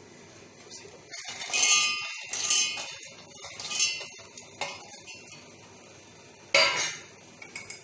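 Roasted, peeled peanuts poured and brushed off a steel plate into a stainless steel mixer-grinder jar, rattling onto the metal, with clanks of steel on steel. A first long rattling spell comes a little over a second in, shorter ones follow, and the loudest single clank comes near the end.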